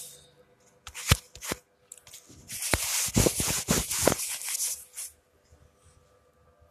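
Handling noise from a phone held in the hand: a few sharp knocks about a second in, then a couple of seconds of rustling and crackling with clicks as fingers rub over the phone near its microphone. It stops about five seconds in.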